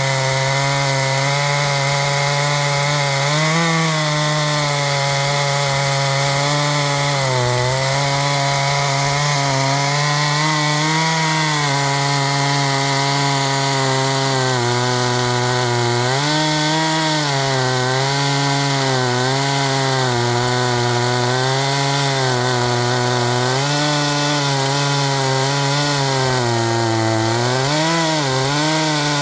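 Two-stroke chainsaw running at high revs under load in a portable chainsaw mill, ripping a log lengthwise. The engine pitch holds steady but dips briefly and recovers several times as the chain bogs in the cut.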